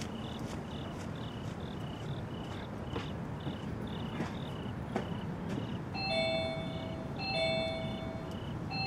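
Insects chirping in an even rhythm, about two short high chirps a second. About six seconds in, a two-note ringing chime starts and sounds again a second later.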